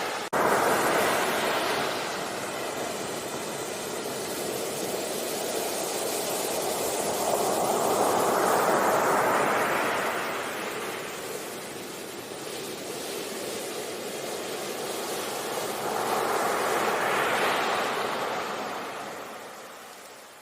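Sea waves breaking on a beach, the wash swelling and fading in slow surges, with waves peaking about a second in, around the middle, and again near the end. A very brief dropout comes just after the start.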